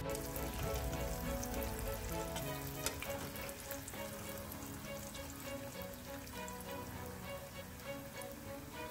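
Battered chicken pieces deep-frying in hot oil: a steady crackling sizzle, with one click about three seconds in. Background music plays underneath.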